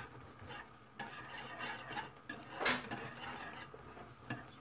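Metal wire whisk beating lemon cream in a nonstick saucepan, its wires scraping and clicking against the pan in quick, irregular strokes, with one louder clink a little past halfway.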